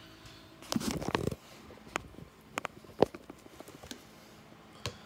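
Handling noise from a phone that is filming as it is picked up and moved: a short rustle about a second in, then a few scattered light clicks and knocks.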